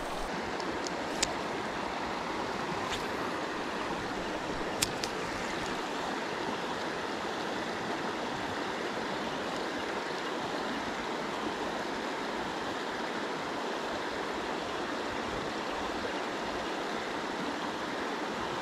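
Steady rush of flowing creek water, with two short sharp clicks about one and five seconds in.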